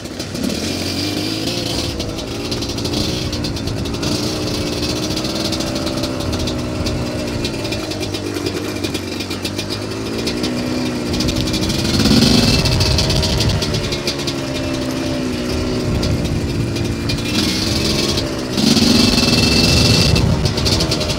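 GPXMoto TSE250R dirt bike's carbureted engine running under way, its pitch rising and falling as the throttle is worked on a gravel trail. There are louder rushes of noise midway and again near the end.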